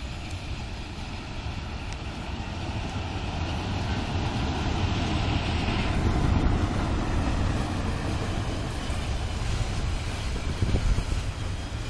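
Krupp BB304-class diesel-hydraulic locomotive running past with its coaches. Its engine rumble grows louder as it approaches and is loudest as it passes, about six seconds in, then eases as the coaches roll by, with a few sharp wheel knocks on the track near the end.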